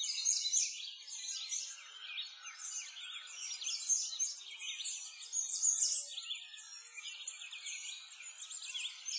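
A dense chorus of many small birds chirping and twittering at once, with quick high chirps overlapping without a break.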